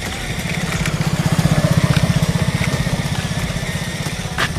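A combustion engine running at low revs with a steady rapid throb, swelling louder through the middle and then easing off.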